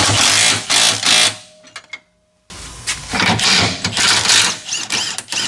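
Impact wrench hammering on a front suspension bolt, tightening it to lock in the caster setting, in two runs with a short pause just before halfway.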